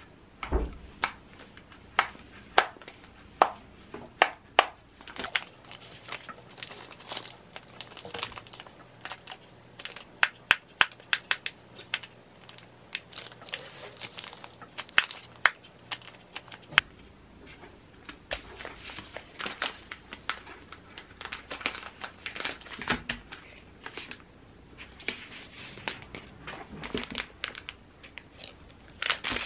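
Plastic snack bags crinkling and rustling as they are handled and sealed, with many sharp clicks and crackles.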